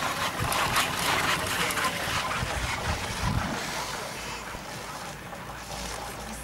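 Nascivera chairlift chair's grip running over the tower's sheave train on the haul rope: a rapid series of clacks and rattles for about three and a half seconds, then dying down to a steadier, quieter running noise.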